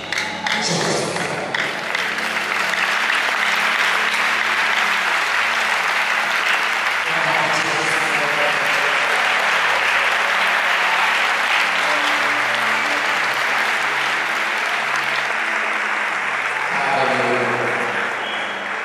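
A large crowd applauding at length, a dense steady clapping with soft held low notes from the band underneath; voices come back in near the end.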